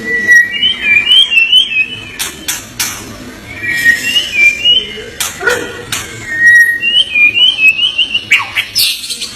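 White-rumped shama (murai batu) singing loudly: repeated phrases of clear, rising and falling whistled notes, mixed with sharp clicking notes.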